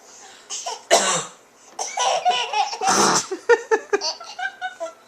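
A baby laughing in short, choppy bursts at a woman's coughing: two short coughs about two seconds apart, with the baby's laughter tumbling after them.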